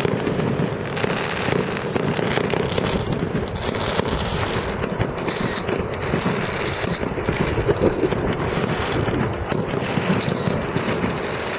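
Fireworks display: a dense, continuous barrage of bangs and crackling shells.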